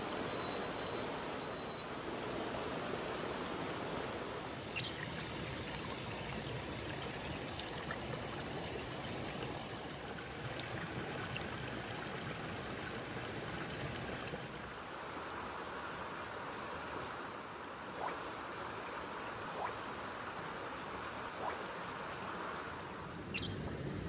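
Mountain stream water flowing steadily. A few short high chirps come at the start, about five seconds in and near the end, with three faint clicks late on.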